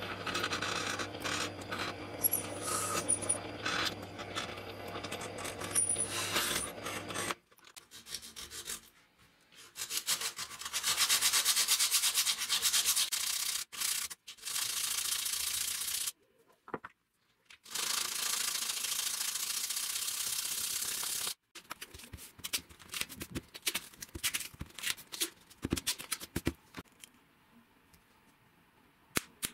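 A drill press motor runs while its bit drills through laminated handle scales held in a vise, for about the first seven seconds. Then comes hand sanding: the scales are rubbed back and forth on a sanding disc laid flat, in several long scratchy stretches with short pauses. Near the end there are only scattered small clicks and taps of handling.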